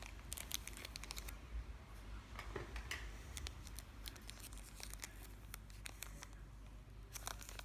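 Faint, irregular crinkling and light clicks of a plastic wrapper and packaging as a boxed Zippo lighter is handled.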